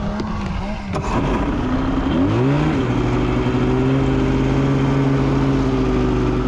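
Snowmobile engine accelerating: its pitch rises about two seconds in, then it runs steadily at speed. There is a single click about a second in.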